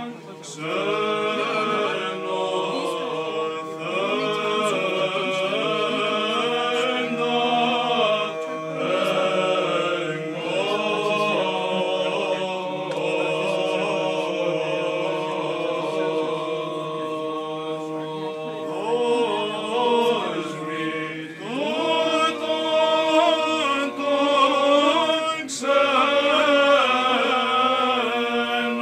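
Unaccompanied Byzantine chant sung by a few young male chanters, a slow melody of held and ornamented notes over a low sustained note that drops out about two-thirds of the way through.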